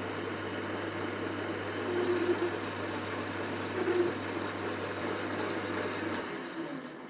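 Metalworking machine tool running under its electric motor, a steady hum and whirr with cutting noise, switched off about six seconds in and running down.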